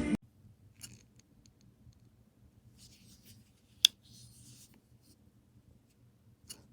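Faint scratching and small clicks of something being handled, with one sharp click a little under four seconds in and a softer one near the end.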